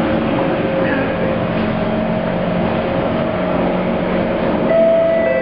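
Steady hum and whine of a Singapore MRT train's onboard equipment while it stands at a station with its doors open. A higher steady tone with overtones joins about four and a half seconds in.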